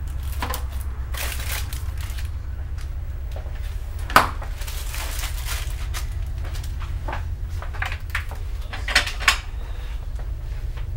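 Kitchen things being handled: scattered knocks and clinks of dishes and cupboards over a steady low hum, with a sharp knock about four seconds in and two quick clicks near the end.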